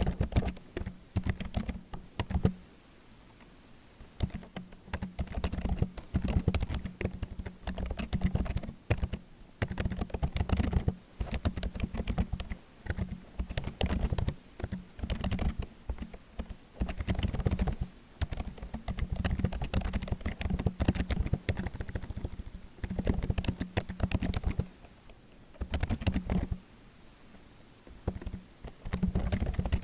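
Typing on a computer keyboard: quick runs of key clicks in bursts of a second or a few seconds, broken by short pauses.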